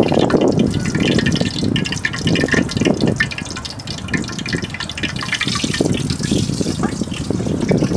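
Water splashing and gushing, a dense run of small splashes and drips that eases off a little around the middle.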